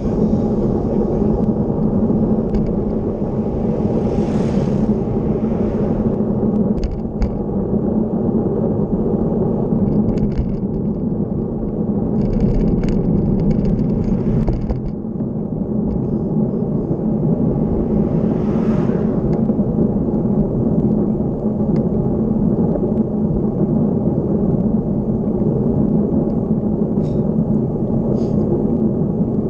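Motorcycle engine running at a steady cruise, heard from a camera on the bike over a low rush of wind and road noise. An oncoming car whooshes past about two-thirds of the way through.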